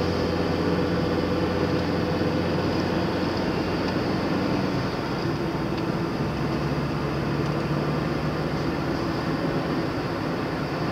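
A car's engine and tyre noise heard from inside the cabin, driving at a steady pace. The engine note shifts to a different pitch about halfway through.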